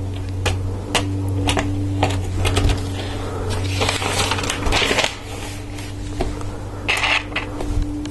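Plastic LEGO Technic parts clicking and clattering as they are handled and fitted, with rattling bursts of loose pieces being sorted through about halfway in and again near the end. A steady low hum runs underneath.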